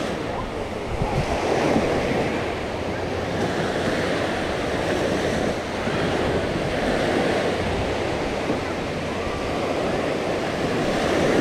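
Sea waves washing onto a beach in a steady wash of surf that swells and eases, with some wind buffeting the microphone.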